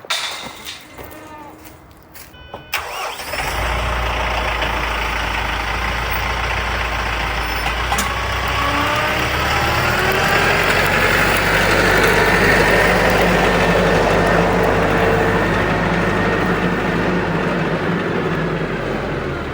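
A vehicle engine starts about three seconds in and keeps running, its pitch rising and its sound growing louder as it picks up speed, then holding steady.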